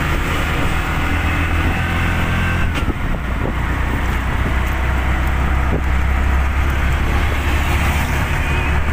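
Auto-rickshaw engine running underway as heard from the passenger seat: a steady low drone with road and wind noise. The engine note shifts about three seconds in.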